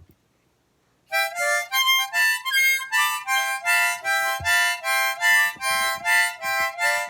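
Harmonica played in short repeated chords, about three a second, switching back and forth between two chords. The playing starts about a second in.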